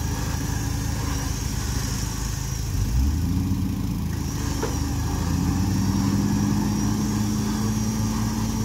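Engine of an off-road truck crawling a trail at low revs. Its pitch rises and holds steady from about halfway through, with a short thump about three seconds in.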